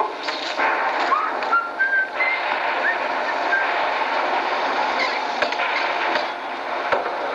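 Sound-effects soundtrack of a haunted-house film played over theatre speakers: a steady hiss with short, high whistle-like notes, a few brief rising glides, and scattered clicks.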